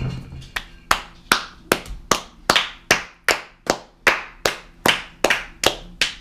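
A child clapping her hands in a steady, even rhythm, about two and a half claps a second, some fifteen claps in all.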